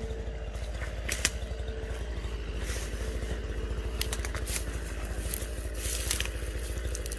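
Dry stems, twigs and brambles crackling, snapping and scraping in undergrowth, with scattered sharp snaps over a steady low rumble.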